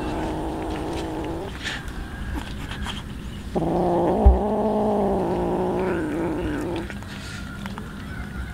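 A cat growling over its raw fish: two long, wavering growls, the first ending about a second and a half in, the second louder and starting abruptly about three and a half seconds in and lasting about three seconds. A brief low thump comes in the middle of the second growl.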